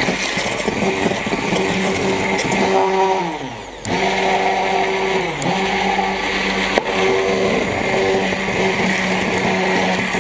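Hand-held immersion blender motor running in a jar, re-emulsifying split mayonnaise with water. Its steady hum slows and drops in pitch twice, about three and a half and five seconds in, then picks up again, and there is one sharp click near seven seconds.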